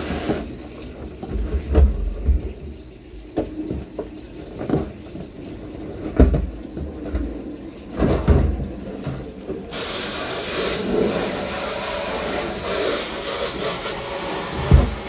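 Water from a garden hose spray nozzle hitting the inside of an empty plastic drum as it is rinsed out. A few knocks and bumps come first, then about two-thirds of the way in a steady spray hiss starts and runs on.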